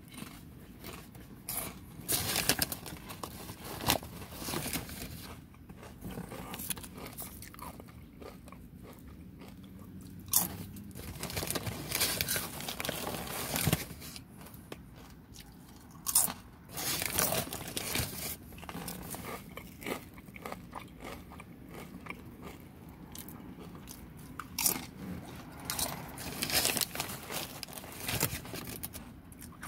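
Potato chips being bitten and chewed close to the microphone: loud, irregular crunching that comes in spells of sharp crackles, with quieter chewing between bites.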